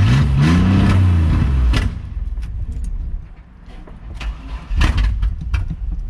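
A cold Blazer engine that has been sitting briefly catches on cranking, its note rising as it revs for under two seconds, then dies away. Scattered sharp clicks and knocks follow. The engine is struggling to fire and keep running.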